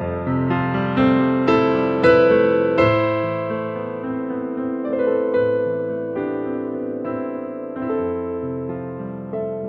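Slow, gentle piano music: chords and single notes struck and left to ring and fade, with several notes in the first few seconds and then longer-held chords.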